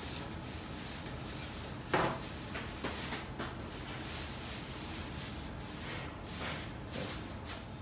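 Knife, sausage and plate being handled on a stainless-steel counter: a sharp knock about two seconds in, then softer clicks and rubs, over a steady low hum.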